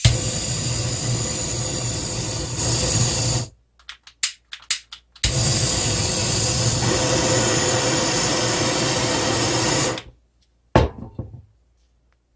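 Chefstar Cooking Pro LT-1804 handheld butane cooking torch running, its flame a steady rushing hiss. The flame stops about three and a half seconds in, followed by a few short bursts and clicks. It starts again with a sharp pop and runs steadily until about ten seconds in, and a sharp click comes near the end.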